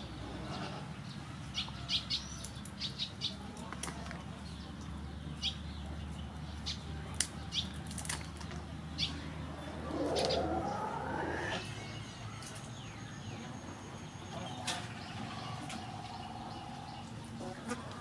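Kitchen scissors snipping through the shells, legs and feelers of giant river prawns: a run of short, sharp clicks, thickest in the first half.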